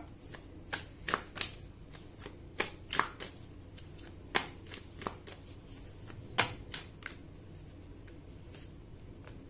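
Oracle card deck shuffled by hand: a run of irregular short, sharp card slaps and flicks, thinning out near the end.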